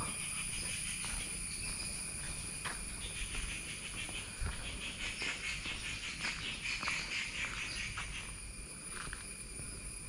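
Tropical forest ambience: insects keep up a steady shrill chorus, with a pulsing trill that swells in the middle and fades near the end. Short faint bird chirps are scattered through it.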